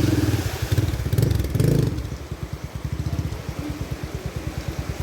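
Motorcycle engine running, louder for about the first two seconds, then settling into an even, rapid low putter at idle.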